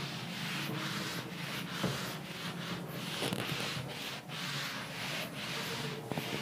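Whiteboard duster being rubbed over the board to erase writing, a scratchy wiping sound in repeated back-and-forth strokes, about two a second.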